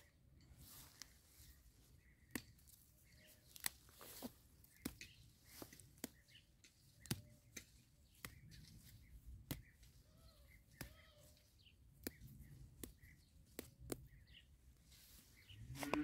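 Light, sharp snaps about once a second as fat-hen (ak sirken) stems are picked by hand, with faint bird chirps behind.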